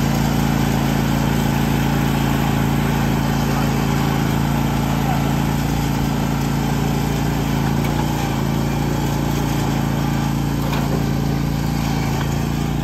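Husqvarna 52-inch zero-turn mower engine running steadily at a constant speed.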